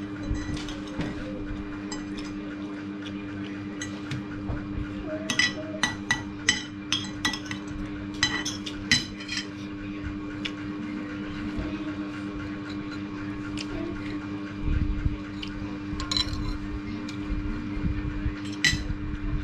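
Metal spoon and fork clinking and scraping against a ceramic plate while eating rice, with a run of quick clinks about five seconds in and a few more near the end, over a steady low hum.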